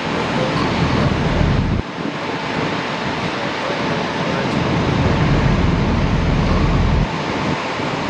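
Steady rush of falling and moving water mixed with wind. A low rumble of wind buffeting the microphone comes in about two seconds in and cuts out abruptly about a second before the end.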